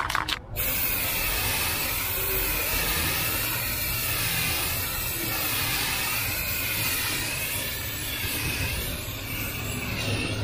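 Aerosol can of flat black high-heat spray paint hissing steadily as it sprays, the hiss wavering slightly as the can sweeps back and forth; it starts about half a second in.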